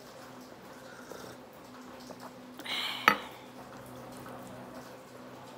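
Quiet eating at a table: a short slurp or sip about two and a half seconds in, ending in a single sharp clink of tableware, as a glass jar or spoon meets the table or dish.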